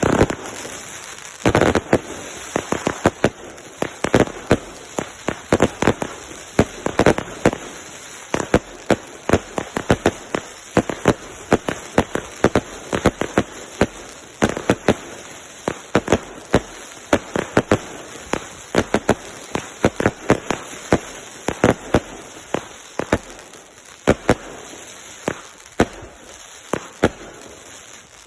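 Consumer fireworks going off without pause: a dense, irregular string of sharp bangs and cracks, several a second, over a constant hiss.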